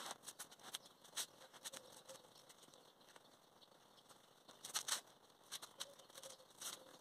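Faint, scattered light taps and clicks, with a short cluster about five seconds in, from someone handling an inflatable dinghy strapped on a car's roof rack.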